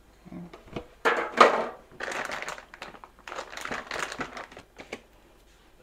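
Crinkling and rustling of a disposable aluminium foil loaf pan and a packet being handled. It comes in irregular bursts, loudest about a second in, and dies away near the end.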